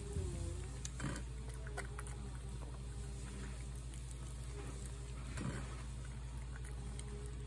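Tabby cat eating wet fish food from a plate: soft chewing with a few sharp mouth clicks, the clearest about a second in and near five and a half seconds, over a steady low hum.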